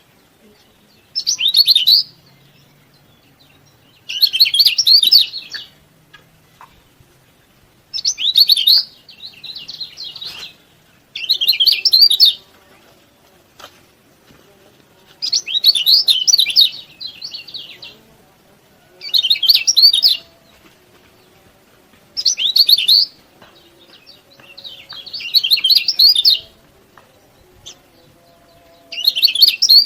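A kecial kuning (white-eye) gives bursts of rapid, high chirping 'ciak-ciak' calls, each about a second long, repeated every three seconds or so.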